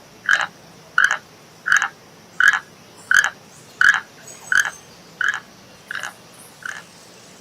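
An animal's short call repeated ten times in a steady rhythm, about three calls every two seconds.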